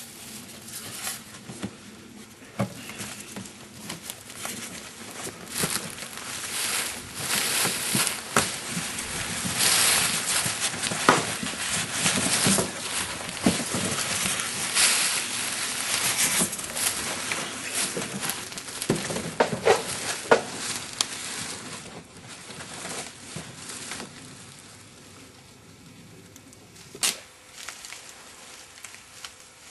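Irregular rustling, crinkling and clicking of gear and packaging being handled, busiest in the middle and quieter near the end, with one sharp click.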